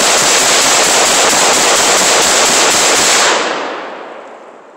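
Riley Defense RAK47C semi-automatic AK-47 rifle fired in a fast string of shots run close together, with Barnaul 123-grain lacquer-coated steel-case 7.62×39 ammunition feeding and cycling without a stoppage. The firing stops a little over three seconds in and the echo dies away.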